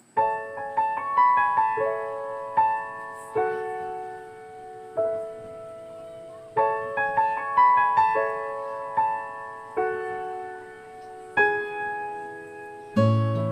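Background music: a gentle solo piano melody of struck, decaying notes, with a strummed guitar coming in near the end.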